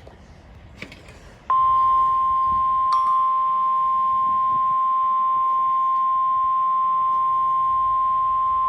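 NOAA Weather Radio warning alarm tone: a single steady high tone near 1 kHz comes on sharply about a second and a half in, after faint radio static and a click, and holds without a break. It is the attention signal that comes before a warning broadcast, here a severe thunderstorm warning.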